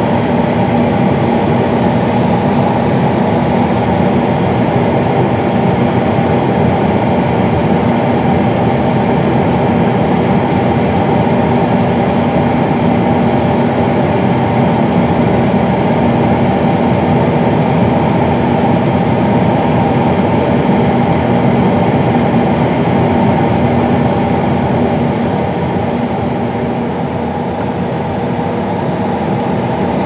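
John Deere Class 9 combines running under load while harvesting wheat: a loud, steady machinery drone with a few steady humming tones, dipping slightly near the end.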